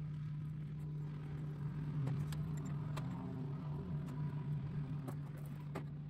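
A steady low motor hum, like an engine running, with a few faint clicks and scrapes as the rubber garage-door seal strip is worked into its aluminium retainer.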